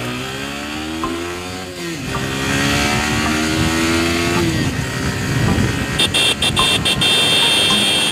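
Yamaha R15 V3's 155 cc single-cylinder engine accelerating hard through the gears. The revs climb and drop at an upshift about two seconds in and again about four and a half seconds in. Wind rush grows with speed, and a high steady whine joins over the last two seconds.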